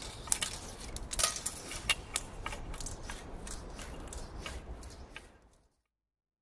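Cobra carbon grinder's cutter working blast furnace carbon lining: irregular sharp clicks and rasping over a low rumble, fading out near the end.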